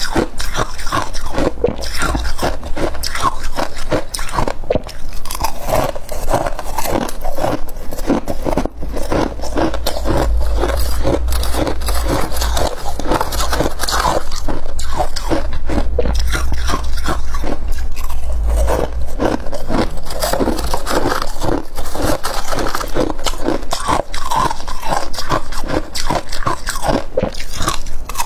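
Loud, close-up crunching of frozen freezer frost being bitten and chewed, a rapid run of crisp crunches with no break.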